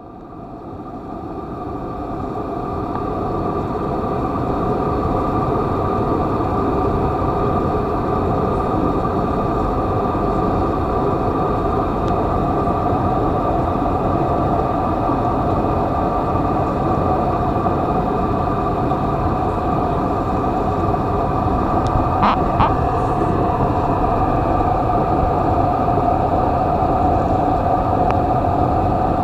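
Steady drone of a jet airliner's engines heard inside the passenger cabin, a rushing noise with a constant hum, fading in over the first few seconds. A couple of faint clicks about 22 seconds in.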